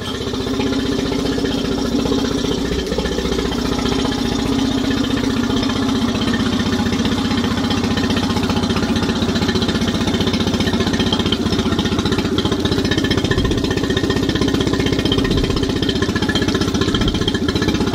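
Mercury four-stroke outboard motor idling steadily at about 840 rpm after its annual service, running fine. Cooling water is spattering onto the concrete.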